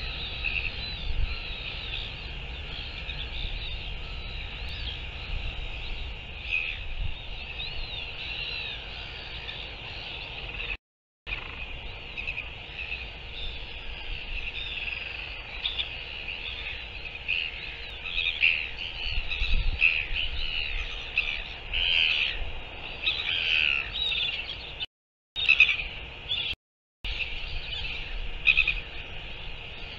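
Many birds calling at once, a dense mix of short chirps and whistles that grows louder past the middle, over a steady low rumble. The sound drops out completely for a moment three times.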